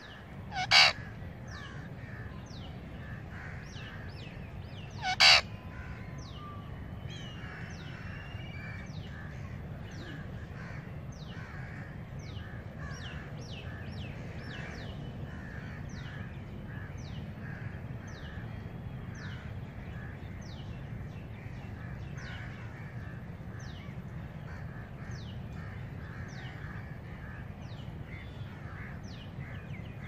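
An Indian ringneck (rose-ringed) parakeet gives two short, loud calls, about a second in and again about five seconds in. Behind them, wild birds chirp all the way through, with quick thin falling chirps about once or twice a second over a busy chatter, and a faint low rumble underneath.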